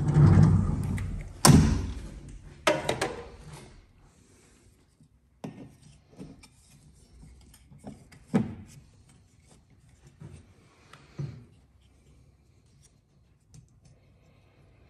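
Handling noises from the new polycarbonate cab door of a Kubota SVL skid steer: a loud scraping rub with a sharp knock about a second and a half in and a quick rattle of clicks near three seconds, then a few scattered light knocks as the door latch is worked.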